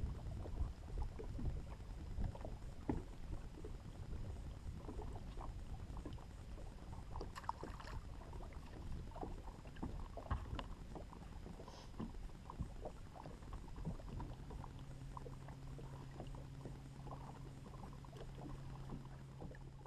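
Lake water lapping and slapping against a fibreglass bass boat's hull, with many small irregular knocks and taps over a low rumble. About two-thirds of the way through, a low steady hum starts and keeps going.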